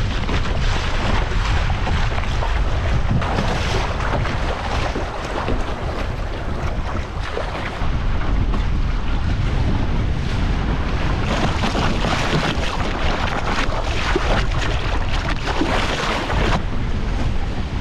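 Wind buffeting the microphone over water rushing and splashing along a sailing dinghy's hull as it sails in a fresh breeze.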